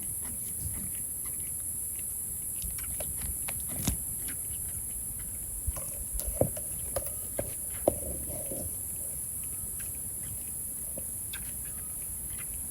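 Outdoor ambience with a steady high hiss or buzz, scattered light clicks and knocks of vervet monkeys moving about a feeding cage, and a few faint short calls about halfway through.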